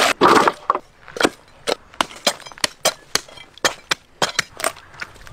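Raw bone-in mutton being chopped, likely with a cleaver on wood: a quick, irregular series of sharp chops, about four a second.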